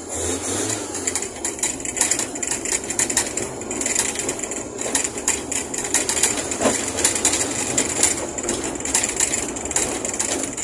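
Fiat 147 race car's engine running while driving, heard from inside the stripped cabin, with a dense stream of rattling clicks over the engine noise and a thin steady high tone.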